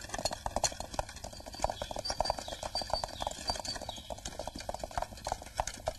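Hooves of several horses clip-clopping in a quick, continuous patter as they pull a carriage and a covered wagon.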